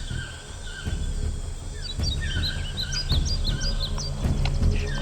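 Songbirds chirping: a quick run of short, rising-and-falling high chirps about two seconds in, over a low rumble.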